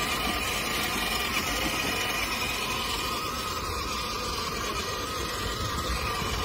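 Battery-powered ride-on toy car's electric motor running with a steady whine.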